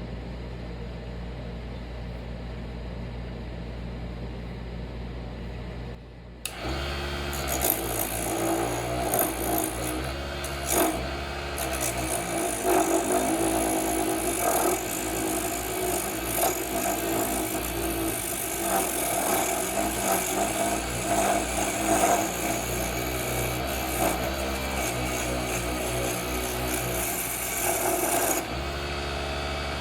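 Vevor HS001 mini wood lathe's motor running steadily, then, about six seconds in, a turning tool is put to the spinning off-centre wooden blank and scrapes it with a rough, uneven noise. Near the end the tool comes away and the motor hum runs on alone.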